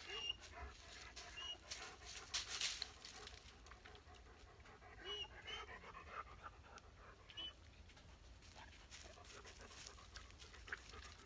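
A Dalmatian panting quietly in short spells, with scattered faint clicks and a few brief high chirps.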